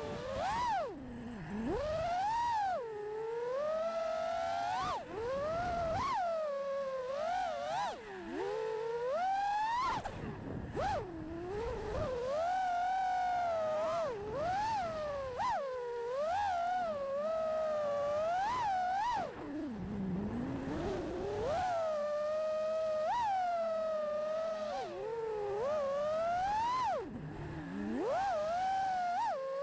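Brushless motors of a 5-inch FPV freestyle quadcopter (iFlight Xing2 2306 1750kv on HQProp Ethix P3.5 props) whining as they spin, the pitch swooping up and down constantly with the throttle and dropping low several times, deepest about twenty seconds in.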